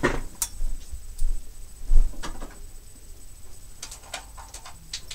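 Scattered light knocks and clicks of someone moving about a small room and handling things, with a dull thud about two seconds in as the loudest sound.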